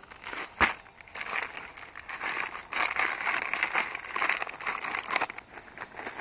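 Sand pouring out of a bag onto sand in a pit, a rough hiss that swells and fades with crackles from the bag crinkling. One sharp knock about half a second in.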